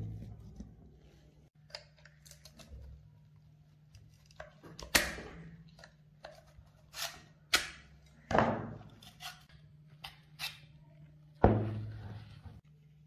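Scattered sharp metallic clicks and knocks as a rusty Tokarev TT-33 pistol is taken apart by hand with a screwdriver, its steel parts tapping against each other and the wooden table. The two loudest knocks come a little past halfway and near the end, over a low steady hum.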